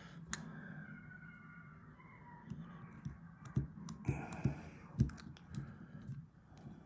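Small metal clicks and light scraping of a disc-detainer pick and tensioner being worked into an Abloy disc padlock's keyway, with one sharp click just after the start and a few scattered clicks later.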